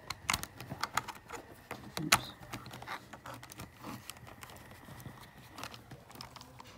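Irregular clicks and knocks of cable connectors being handled and pushed into ports, the loudest about two seconds in.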